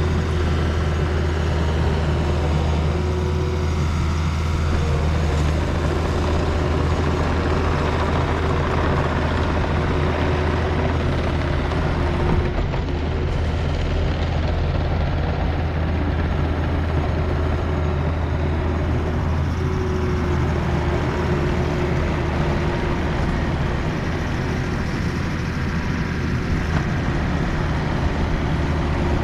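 Takeuchi TL250 compact track loader's diesel engine running steadily under work, a constant low hum.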